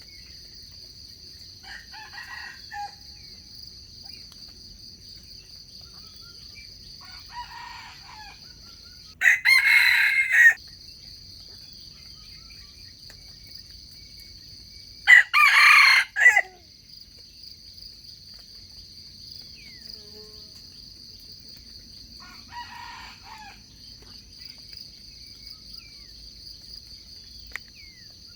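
Wild junglefowl roosters crowing: two loud crows about ten and fifteen seconds in, and fainter, more distant crows three times around them. A steady high insect drone runs underneath.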